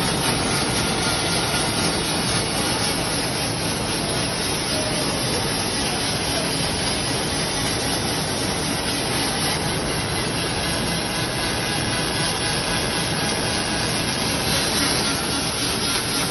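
Robotic MIG welding arc on aluminium, a steady hiss with fine crackle that runs without a break.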